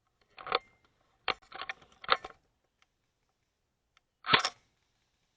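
Airsoft replica firing a handful of sharp, single shots in the first two seconds or so, then one louder shot near the end.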